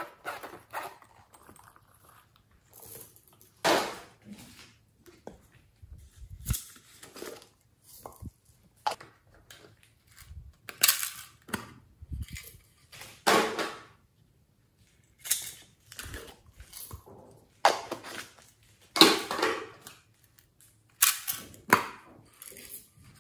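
Small plastic containers handled close up: an irregular run of sharp clicks, knocks and short scraping sounds every second or two, as lids are worked and the pots are tapped and set down.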